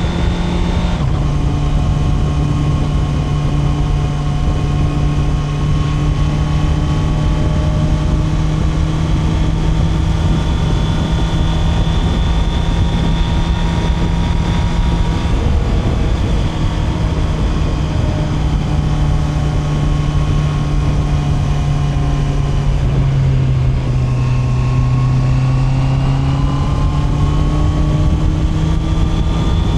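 Honda CB650R's inline-four engine running under way at a steady pitch, with wind and road noise. The pitch drops about a second in, sags twice more later, then climbs steadily near the end as the bike accelerates.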